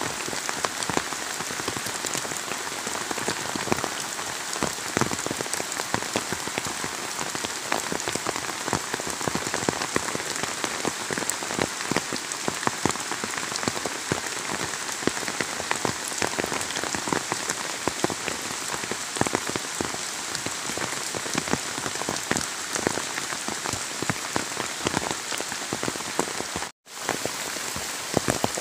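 Rain falling on dense tree and crop leaves and on a puddled mud track: a steady hiss full of sharp drop splashes. The sound cuts out for an instant near the end.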